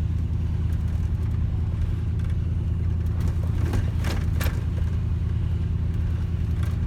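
Vehicle engine running steadily with a low, even hum, heard from inside the cab, with a few light knocks or rattles midway.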